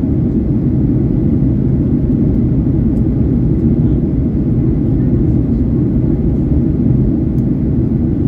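Steady low cabin noise of a Boeing 737-900ER in its climb after takeoff: the CFM56-7B turbofan engines and rushing airflow, heard from inside the cabin.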